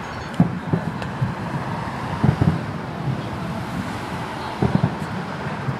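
Steady road traffic noise with wind on the microphone, broken by a few dull low thumps: a pair about half a second in, a cluster around two seconds in and another near the end.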